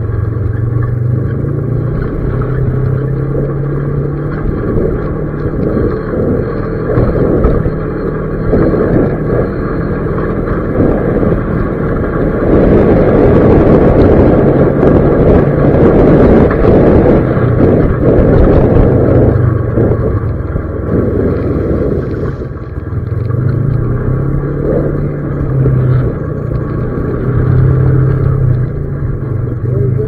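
A vehicle's engine running as it drives along a rough dirt road, its note rising and falling with the throttle. Road and tyre noise gets louder for several seconds around the middle.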